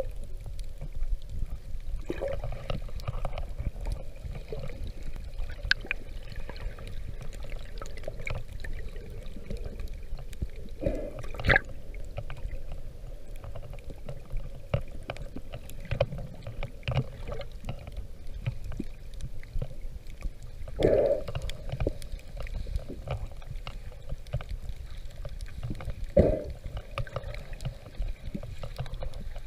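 Underwater sound through an action camera's waterproof housing: a steady low rumble of moving water with many small clicks. There are three louder, brief bursts, spread through.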